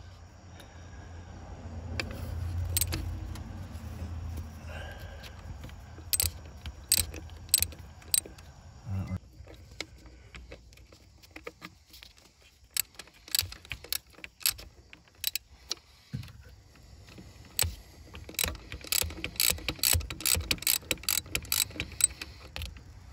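A 3/8-inch drive ratchet clicking in quick runs as a T27 Torx screw is backed out of the fuel pressure spring housing on a 7.3 Power Stroke's fuel bowl. A low hum stops about nine seconds in.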